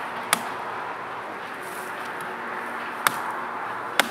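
Restored mattock's steel blade chopping into a tree stump: three sharp strikes, the first two about three seconds apart and the third a second after.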